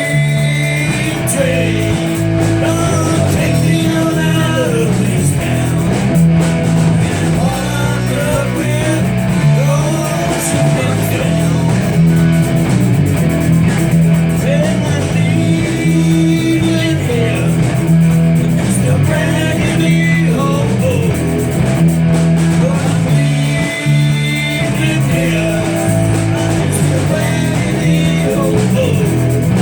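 Live rock band playing a blues-rock song at full volume, with electric guitar to the fore over a repeating bass line.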